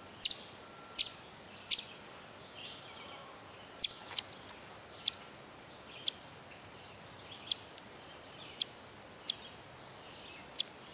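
Eastern chipmunk's alarm call: sharp, high-pitched single chips repeated roughly once a second, with a gap of about two seconds after the third. It is the chipmunk's scolding at a person close to its burrow.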